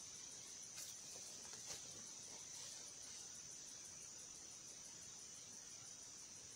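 Faint, steady high-pitched insect chirring, with two faint clicks about one and two seconds in.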